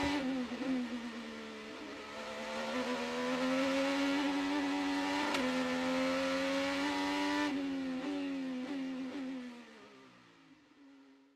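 Racing car engine running at high revs, its pitch drifting up and down, fading out near the end.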